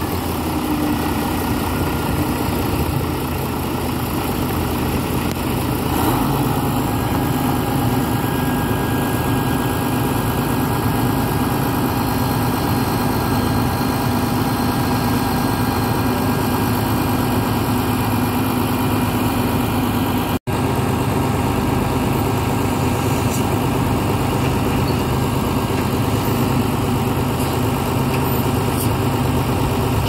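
Doosan Solar 500LC-V crawler excavator's diesel engine running steadily, an even drone with a steady hum. It cuts out for an instant about two-thirds of the way through.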